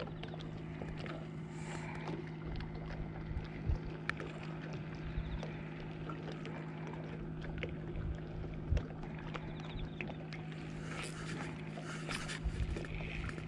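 A steady low mechanical hum made of a few fixed tones, with scattered light clicks and taps over it and a couple of brief rustles near the end.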